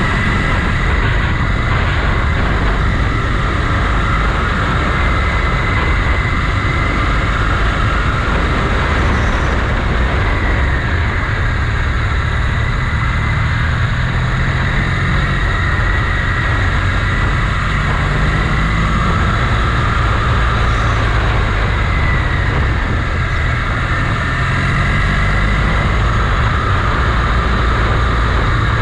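Motorcycle running under way, heard on board, with wind rushing over the microphone. The engine pitch rises and falls gently as the bike rides along.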